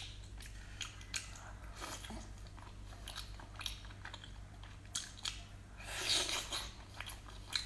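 Close-miked chewing and biting of braised octopus and abalone: scattered wet clicks and smacks, with a longer, louder bite about six seconds in, over a low steady hum.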